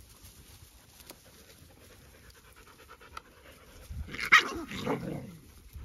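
A dog panting, with two loud dog vocal sounds about four and five seconds in, the second falling in pitch.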